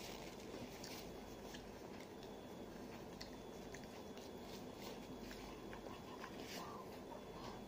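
Faint eating sounds: chewing and mouth noises with scattered small clicks, over a steady low room hum.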